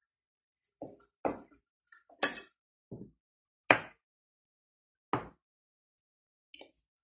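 Kitchen knife cutting vegetables on a wooden cutting board: about seven separate, irregular knocks of the blade on the board, the two sharpest about a third and halfway through.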